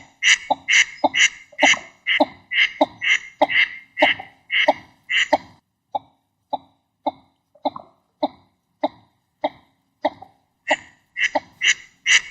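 Northern shoveler calling: a long series of short, clipped notes, about two or three a second. The notes drop to a fainter, lower sound for several seconds in the middle and grow loud again near the end.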